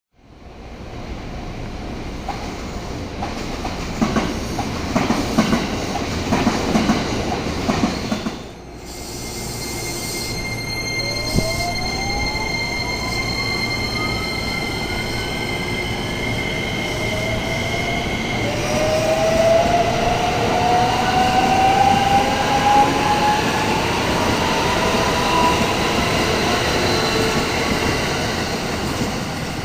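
Electric commuter trains passing a level crossing. For the first eight seconds the wheels clatter rhythmically over the rail joints. After a break, a train's traction motors give a whine that climbs steadily in pitch as it accelerates, and a second rising whine follows.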